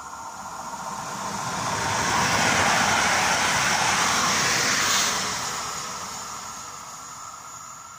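Electric multiple unit passing through the station at speed without stopping: wheel and rail rumble with a steady electric motor whine, swelling to its loudest for a few seconds as it goes by, then fading as it moves away.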